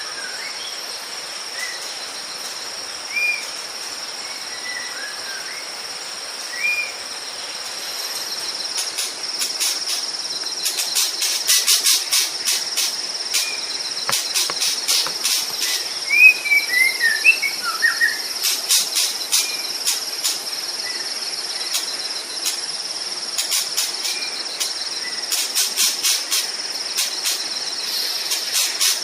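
Outdoor nature ambience: a steady high insect drone, with scattered short whistled bird notes. From about eight seconds in, a loud, rapid pulsing insect chirring joins and becomes the loudest sound.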